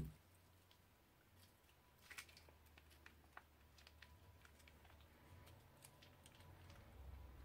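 Near silence: faint room tone with a few scattered soft clicks and crackles, a small cluster about two seconds in.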